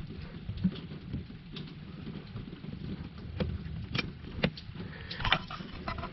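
Scattered light plastic clicks and rattles as a car's passenger airbag module and its wiring plug are handled and fitted, with a short cluster of clicks about five seconds in.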